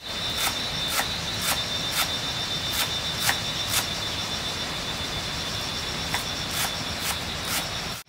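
Insects trilling steadily at a high pitch. Over them come sharp knocks, about two a second, in a run of eight over the first four seconds and another four near the end.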